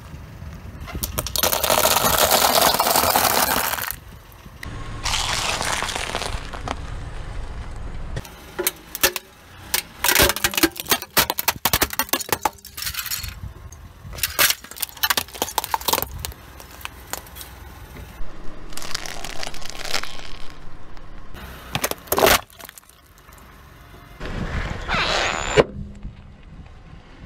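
A car tyre slowly crushing a series of objects on asphalt: mesh-covered squishy stress balls and toys, then a plastic toy guitar shattering. Long noisy squishing surges alternate with clusters of sharp cracks and snaps of breaking plastic.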